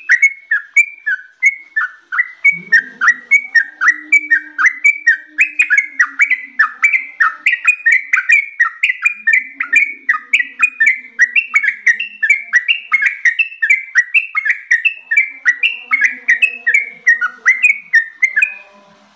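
Yellow-vented bulbul singing a long, fast, unbroken run of short whistled notes, about four a second, stopping shortly before the end.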